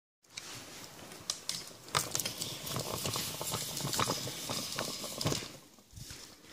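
Rustling and crackling with scattered sharp clicks: handling noise of a hand-held phone's microphone as it is held and adjusted.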